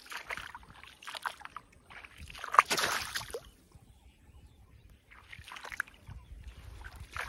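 Water splashing and sloshing in irregular bouts, the loudest splash about two and a half seconds in.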